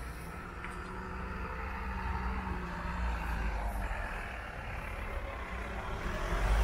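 Level crossing barrier mechanism running as the boom lifts: a steady low hum over a low rumble, which grows louder near the end.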